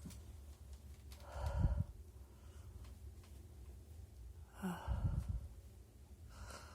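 A person sighing and breathing out hard through the nose: two louder breaths about one and a half and five seconds in, and a softer one near the end.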